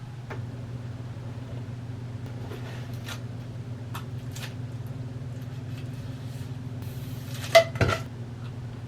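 Steady low mechanical hum, like a vehicle or machine running, with a few light clicks and two sharp knocks about seven and a half seconds in.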